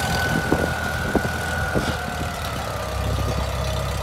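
Farmall M tractor's four-cylinder engine running slowly as the tractor backs into a shed, with a few sharp knocks in the first two seconds.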